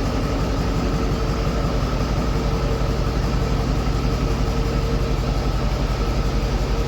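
Ford 6.7 Power Stroke V8 turbodiesel idling: a steady low rumble with a fast, even pulse and a faint steady whine. The engine has a dead cylinder.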